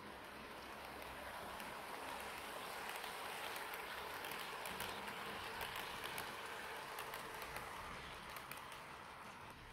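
Piko model train running on its track: a steady rolling rattle of wheels on the rails with the locomotive's small motor, dotted with light clicks. It grows louder as the coaches pass close by mid-way and fades near the end.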